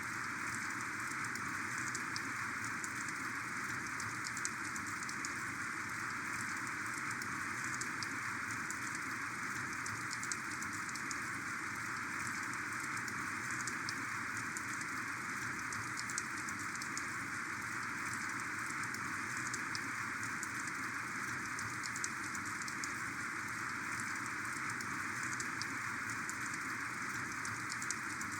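Heavy rain falling steadily, a dense, even hiss of rain with many small drop ticks.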